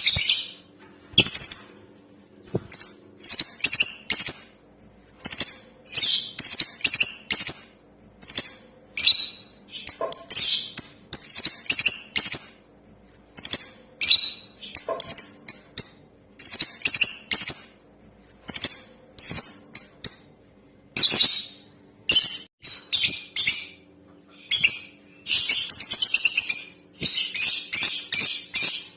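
Female lovebird calling: short bursts of high-pitched chirps about once a second, running into a fast, unbroken chatter near the end.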